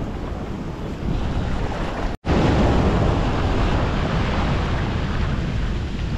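Sea surf with wind buffeting the microphone, a steady rushing noise. About two seconds in the sound cuts out for a split second, then comes back louder.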